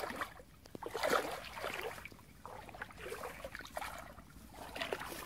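Footsteps wading and splashing through shallow muddy water, in irregular sloshing bursts about once a second.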